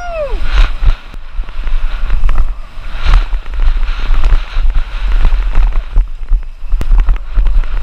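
Wind buffeting the action camera's microphone during a fast descent on a dirt jump hardtail, a loud rumble with many quick knocks and rattles as the bike runs over rough dirt trail.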